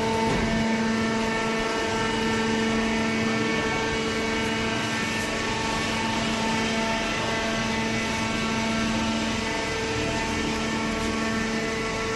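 Hydraulic baler machine running: a steady mechanical hum with a constant pitched whine over it.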